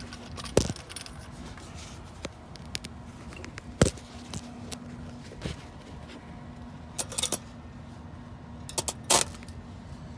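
Wire-feed welder striking short arcs: several brief crackling bursts of a fraction of a second each, the longest near the end, over a steady low hum. The short, broken-off bursts are the sign of the wire being tapped in short stitches rather than held in one place.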